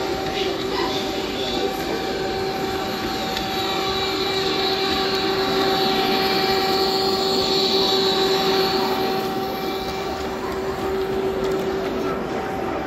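Model train rolling past on a layout track, led by a model ES 64 U2 electric locomotive: the running noise of the wheels and motor, over a steady hum, swelling as the locomotive passes close about halfway through and easing off as the wagons follow.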